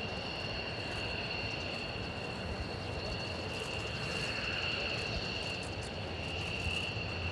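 Twin Pratt & Whitney F100 turbofans of a JASDF F-15J Eagle taxiing at low power: a steady high-pitched jet whine at two fixed pitches over a low rumble.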